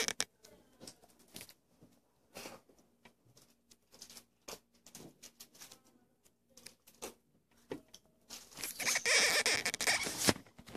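Phone handling noise: scattered light clicks and rubbing, then a louder stretch of rustling for about two seconds near the end.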